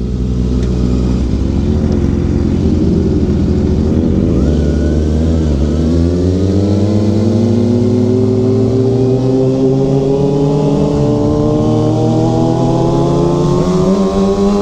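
Kawasaki ZX-6R sportbike's inline-four engine running under way, uneven for the first few seconds, then pulling with its pitch climbing slowly and steadily from about six seconds in as the bike accelerates.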